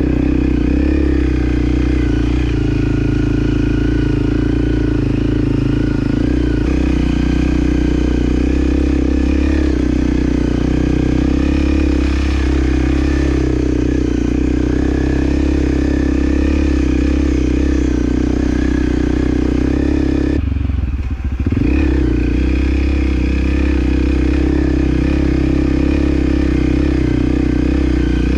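Motorcycle engine running steadily during an off-road ride. About three-quarters of the way through, the sound briefly drops away and falls in pitch, then picks up again.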